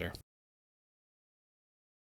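Dead digital silence: the sound track drops out completely just after a spoken word ends at the very start.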